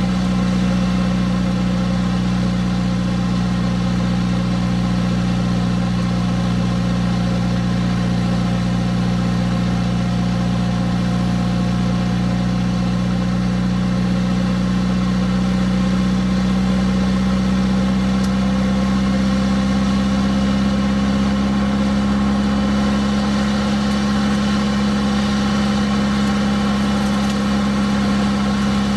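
Nissan D21 pickup's turbocharged SR20DET four-cylinder engine and drivetrain running steadily on the move, a constant hum whose pitch creeps up a little about halfway through.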